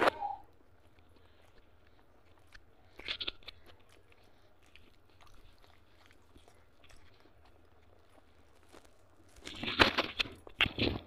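Close-up sounds of a person eating by hand and chewing a mouthful of rice and mutton fat curry, in short bursts: at the start, about three seconds in, and loudest in a cluster near the end.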